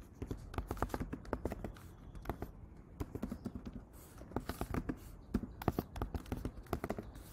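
Typing on a computer keyboard: quick, irregular keystroke clicks, several a second, with short pauses between runs.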